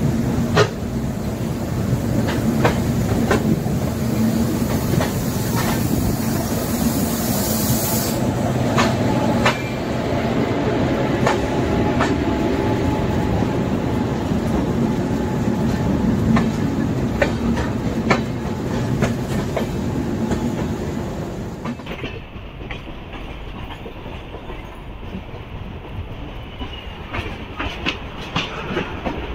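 Deccan Queen Express passenger coach rolling over the rails, heard at its open door: steady running noise with irregular clicks as the wheels pass rail joints and points while the train pulls out. About three quarters through, the sound becomes quieter and duller.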